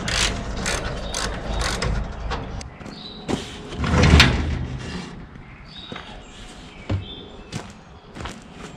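Clanks, rattles and knocks of a long amber roof light bar being lifted off a steel tow-truck headache rack, with one heavy bump about four seconds in, then fainter scattered clicks.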